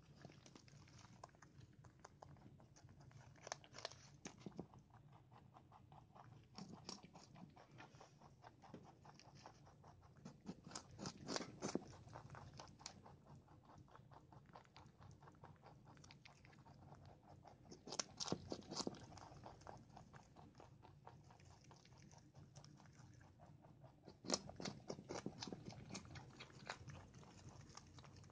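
Pet rabbits chewing fresh leafy greens, a fast, soft crunching of many quick bites that grows louder in short bouts every several seconds.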